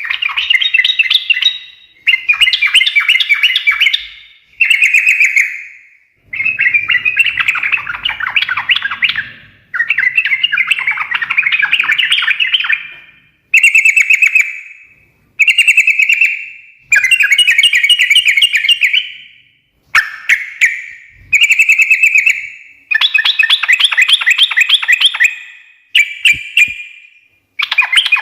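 Yellow-vented bulbul (trucukan) singing its chattering 'ngekek' song: a run of loud phrases, each one to three seconds long and made of rapid stuttering notes, following one another with short pauses.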